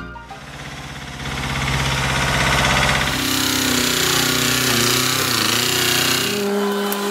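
Construction machinery. For the first three seconds there is rapid, even mechanical hammering. After that comes the diesel engine of a Lifton Loadstar site dumper running under way, its pitch wavering briefly.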